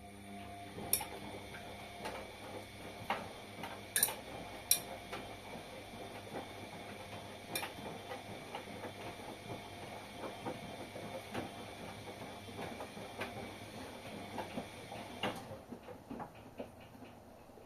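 Front-loading washing machine tumbling a wash load: a steady motor hum with irregular clicks and knocks from the turning drum, stopping with a click near the end as the drum pauses.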